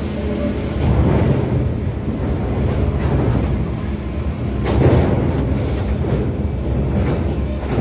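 Heavy truck driving off a ferry's steel ramp onto the steel dock plates: a deep, steady rumble with metal clanks as the wheels cross the plates, the loudest about five seconds in.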